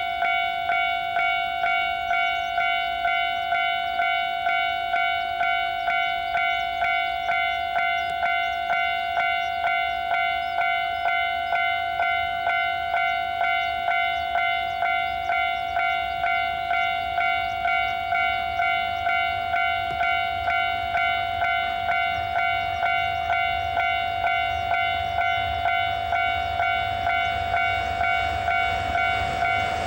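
Railway level-crossing alarm ringing a steady, even ding, about three strokes every two seconds. Near the end the low rumble of an approaching DD51 diesel-hydraulic locomotive rises beneath it.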